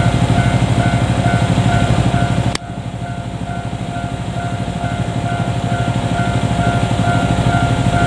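Japanese railway level-crossing warning bell ringing steadily in a rapid, even repeating pattern. The sound drops abruptly about two and a half seconds in and then builds back up.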